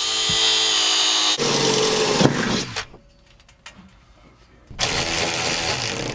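Angle grinder cutting metal, a harsh grinding noise with a steady whine, winding down a little after two seconds in. After a short lull with a few light clicks, a cordless ratchet runs near the end, driving a bolt on the steel frame.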